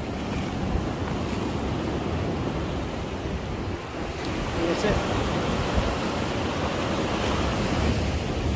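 Steady wind rumbling on the microphone over the wash of sea waves against a breakwater.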